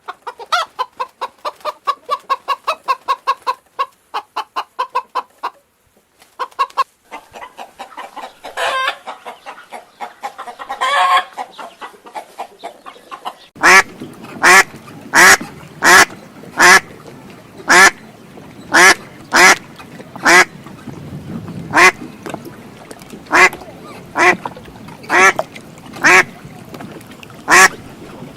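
Chickens clucking in quick runs of short notes for the first half. Then, from about halfway, a duck quacking loudly, about one quack a second.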